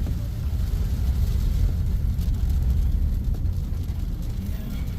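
Steady low rumble of a car driving, heard from inside the cabin, as it travels on a wet road in heavy rain.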